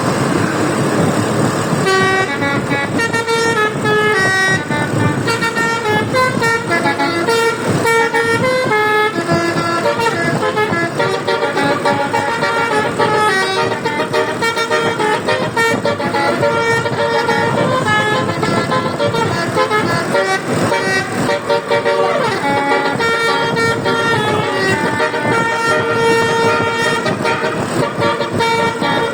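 Basuri "telolet" multi-tone bus horn on a Dewi Sri bus playing a running tune of stepped notes, starting about two seconds in after a moment of vehicle noise.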